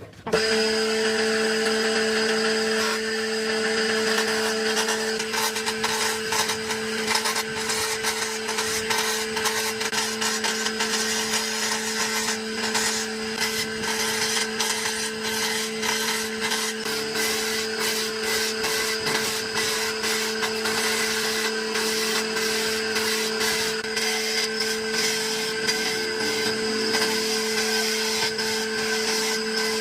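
Electric power tool switching on and running steadily with a constant motor hum, its cutter or abrasive rubbing and scraping unevenly against wood.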